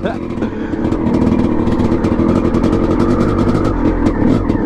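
Two-stroke single-cylinder engine of a freshly rebuilt 1989 Honda CR500R running under load as the dirt bike is ridden, a steady, rapidly pulsing exhaust note with small shifts in pitch.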